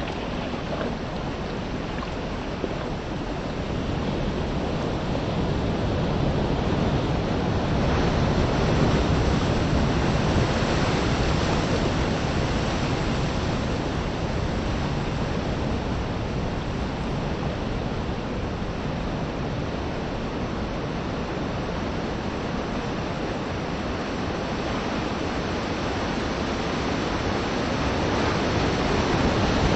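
Sea waves washing on the shore, with wind: a steady rushing that slowly swells and eases.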